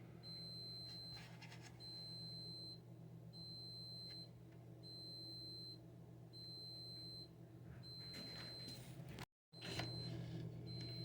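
Security camera system alert beeping: a high electronic tone about a second long, repeating every second and a half, signalling that one of the cameras is out. A steady low hum runs underneath, and the sound cuts out for an instant near the end.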